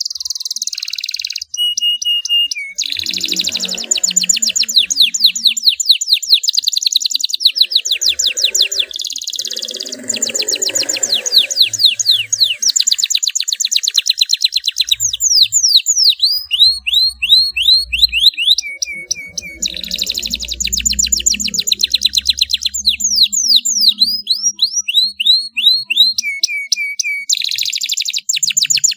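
Domestic canary singing a long song of fast rolling trills and rapid repeated chirps, broken by runs of sweeping notes and a few short steady whistles.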